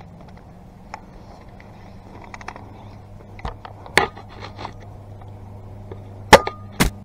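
Airsoft sniper rifle being handled with scattered small mechanical clicks and a louder knock about four seconds in, then one sharp shot a little after six seconds, followed by a second sharp snap about half a second later.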